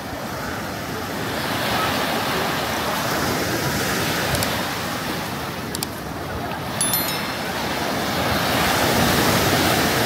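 Sea waves washing onto the beach, a rushing surf that swells and ebbs and is loudest near the end, with wind on the microphone. A few short ticks sound in the middle.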